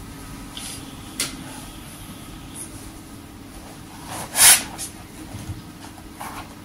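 Low steady room hum with a sharp click about a second in, and a short breathy burst, the loudest sound, about four and a half seconds in.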